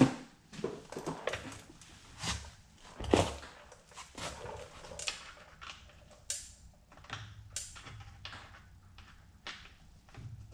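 Irregular light clicks and knocks of a suspension pivot bearing and a rod being handled and worked into a mountain bike frame's pivot, the loudest knocks near the start and about three seconds in.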